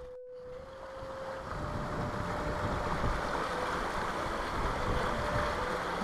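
Steady rushing of river rapids, mixed with wind, after a brief dropout of all sound just after the start.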